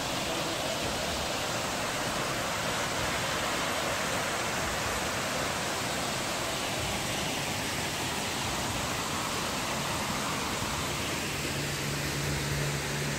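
Water fountain splashing, a steady, even rushing of falling water. A low steady hum comes in near the end.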